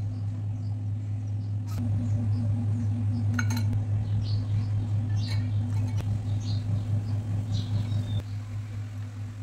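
A steady low hum throughout, louder through the middle. A few sharp clinks of a steel spoon and bowl against a glass mixing bowl while vegetables are stirred into batter.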